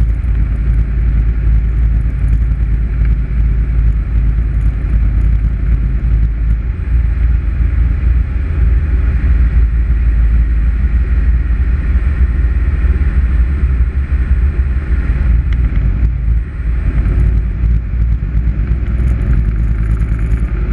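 Light single-engine aircraft's piston engine and propeller running steadily on the approach to landing, heard from inside the cockpit with airflow noise around the canopy. The drone dips briefly about three-quarters of the way through.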